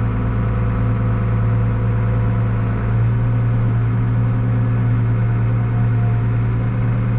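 Tractor engine running at a steady speed while driving and towing a loaded manure spreader, heard from inside the cab as a steady low drone.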